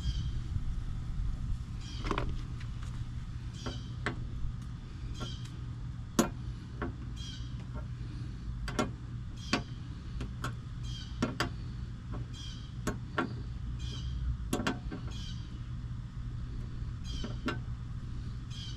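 Scattered light clicks and taps as the antenna mast is threaded back onto its base on the truck, over a steady low hum.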